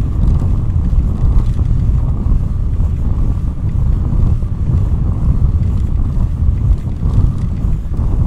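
Wind buffeting the microphone of a camera on a moving bicycle: a loud, uneven low rumble.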